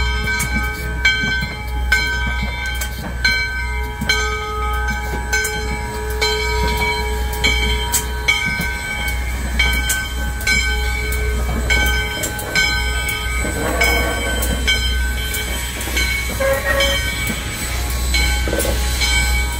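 Steam locomotive 148 moving slowly past at close range, its bell ringing in a steady rhythm of about three strikes every two seconds over a low rumble.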